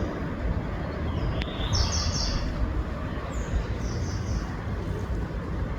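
Small birds chirping in quick clusters of high notes, twice, over a steady low rumble.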